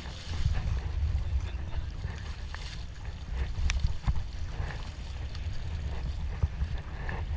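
Wind buffeting a GoPro HERO4's microphone on a sea kayak, a gusting low rumble, over faint water splashes from paddling, with one sharp click near the middle.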